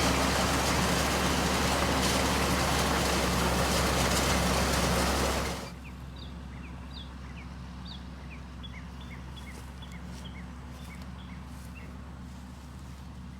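Farm tractor engine running steadily with a loud rushing noise over it. The rushing cuts off abruptly about five and a half seconds in, leaving the engine's lower hum and a series of short high chirps.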